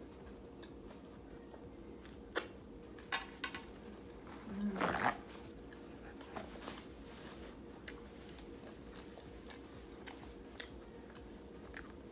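Quiet eating: a bite into a soft corn-tortilla taco and chewing, with a few small crunches and mouth clicks over a low steady room hum. The loudest bite comes about five seconds in.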